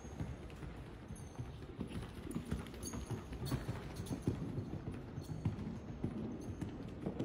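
Hoofbeats of a horse cantering on sand arena footing: a run of dull, uneven thuds.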